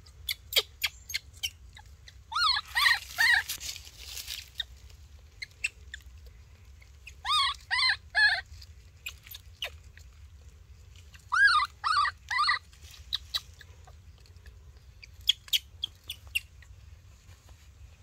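Newborn baby macaque crying: short, arched squeals in groups of three, one group every four to five seconds, with scattered sharp clicks between them.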